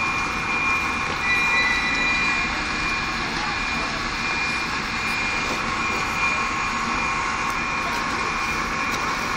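Passenger train standing at a station platform, its machinery running with a steady roar and a steady high whine on top.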